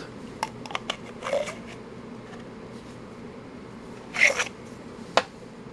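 Small probe parts being handled on a workbench: a few light clicks, then a brief rustle, a louder scrape-like rustle about four seconds in, and a sharp tap near the end. The sounds come from a copper-foil-wrapped tube and plastic insulator pieces being picked up and set down.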